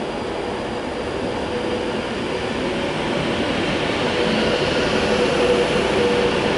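Class 390 Pendolino electric multiple unit passing, a continuous rush of wheels on rail with a steady hum, growing a little louder and with a higher whine coming in about halfway through.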